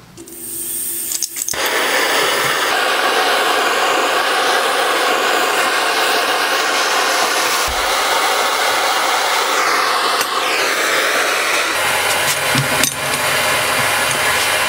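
Handheld gas torch flame burning with a steady hissing rush, starting about a second and a half in. It is heating a steel linkage arm so that the bore expands for a shrink fit of bronze bushings.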